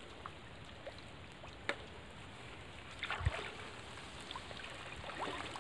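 Water trickling and dripping faintly from a bamboo-framed lift net as it is raised out of shallow pond water. A sharp click comes about a second and a half in, and a dull thump a little after three seconds.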